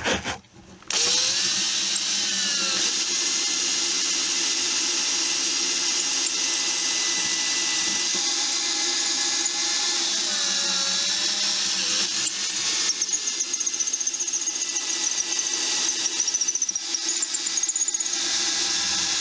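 Handheld power drill boring a small hole through a guitar's fretboard at the neck joint, down into the neck's dovetail pocket for a neck reset. The motor starts about a second in after a brief stop, then runs steadily, its pitch sagging and recovering twice as the bit bites into the wood.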